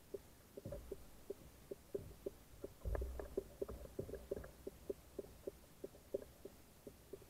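Muffled light ticks, about three a second, with a few dull low thumps: a kayak's hull and fittings knocked by small waves in choppy water.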